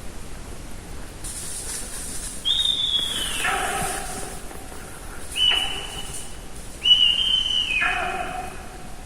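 Sika deer whistling three times. Each call is a high, steady whistle held for about a second that then drops sharply to a much lower note. These whistles are the deer's alarm calls and the way they call to one another.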